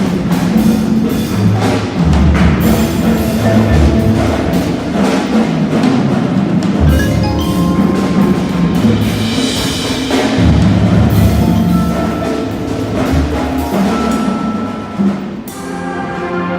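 Marching band playing, with the front-ensemble mallet percussion (marimba, xylophone, glockenspiel) and wood block prominent over drums and band. The music dips briefly near the end, then carries on.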